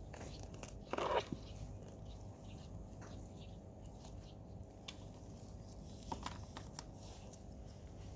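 Potato plants and soil being handled during a hand harvest: scattered rustles, crackles and small crunches, with one louder scraping rustle about a second in.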